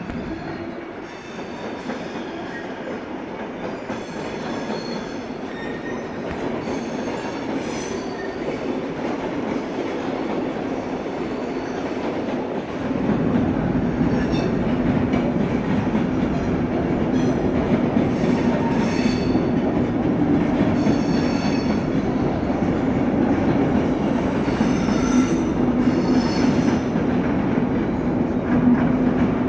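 Loco-hauled passenger train with an SBB Re 460 electric locomotive rolling through station tracks. Wheels rumble and squeal briefly now and then on the curves and points. About halfway through it gets louder, and a steady low hum joins as the locomotive draws near.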